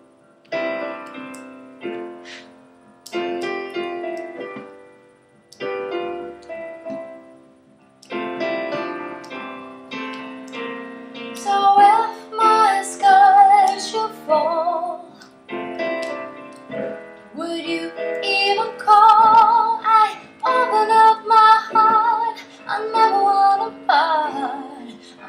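Piano played with steady chords. From about halfway through, a woman's singing voice joins over it, held notes with vibrato, louder than the piano.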